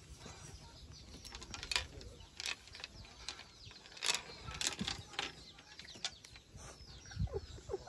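Scattered light clicking and rattling of a small metal chain and bamboo slats as a baby macaque struggles in a person's hand, with a few short squeaks near the end.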